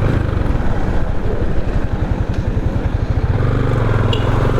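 Motorcycle engine running while riding, a low pulsing engine note that settles into a steadier hum about three seconds in.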